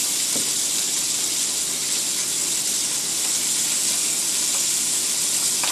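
Meat and vegetables sizzling on a tabletop grill plate, a steady hiss.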